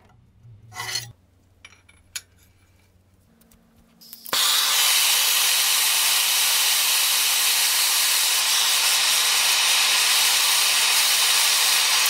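A few brief knocks. Then, about four seconds in, a handheld cartridge gas torch is lit with a click and burns with a loud, steady hiss.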